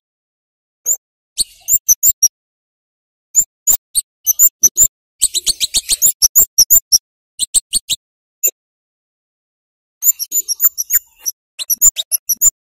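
Scarlet-headed flowerpecker (kemade) giving sharp, very high 'cit' calls: short chirps fired off in irregular clusters, densest about halfway through, with brief silent pauses between the clusters.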